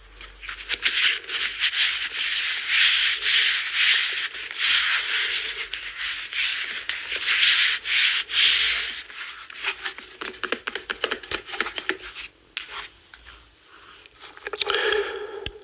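A foam roller being rubbed and scratched: a steady rubbing hiss for about the first nine seconds, then irregular scratches and taps that grow sparser toward the end.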